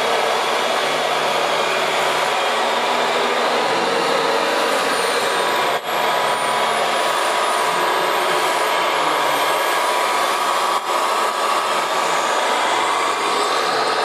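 Radio-controlled model trucks and construction machines running: a steady whir of small electric motors with a truck engine sound from sound modules. The sound breaks off briefly twice.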